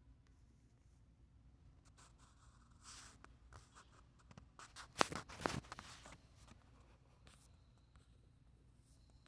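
A short run of close scratching and rustling with a few sharp clicks, loudest about five seconds in, over faint room tone.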